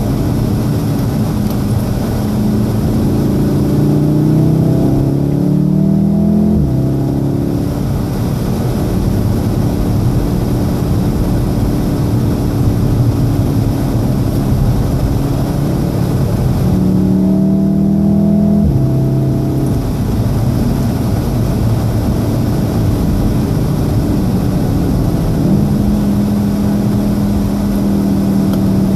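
A Golf VII R's 2.0-litre turbocharged four-cylinder heard from inside the cabin while driving hard. It climbs in pitch under acceleration twice and falls sharply at the end of each climb, over steady road noise.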